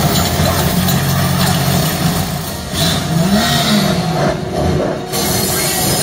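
Action-film car-chase soundtrack played back through a Sonos PlayBar soundbar: vehicle engines revving amid dense crash and debris noise, with a low engine note rising and falling a little past the middle.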